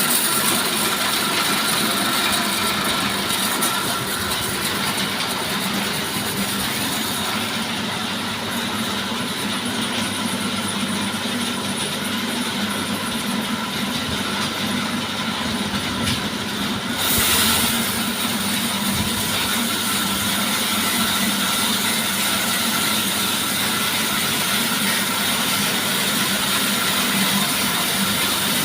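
Sawmill machine running steadily while sawing timber: an even mechanical hum with a constant whine. About seventeen seconds in, a brief louder hiss rises.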